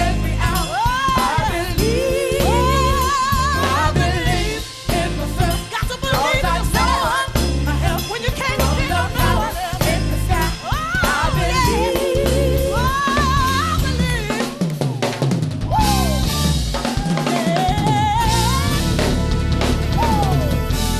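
Live gospel band music with the drum kit to the fore: snare, kick and rim hits with fills, under wavering melodic lines with vibrato.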